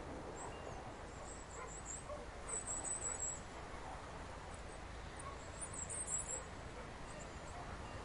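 Rural outdoor ambience: a steady low background with small birds chirping high-pitched, in two louder bursts about two and a half and six seconds in.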